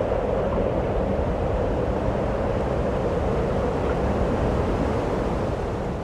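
Steady wind-like rushing noise that begins to fade near the end.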